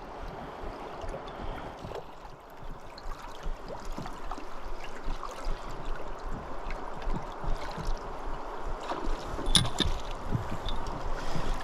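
River water moving against a one-person inflatable raft, with scattered small splashes and a couple of sharp clicks about nine and a half seconds in.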